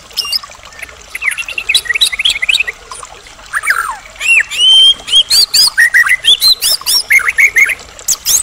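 White-rumped shama (murai batu) in full song: a fast, varied run of whistles, chirps and rising and falling notes in quick succession, loudest from about halfway through.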